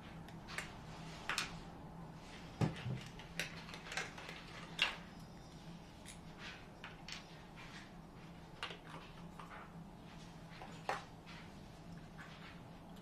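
Hard plastic casing parts and a small aroma bottle clicking and tapping as they are handled and fitted together, a scattering of short irregular clicks and knocks.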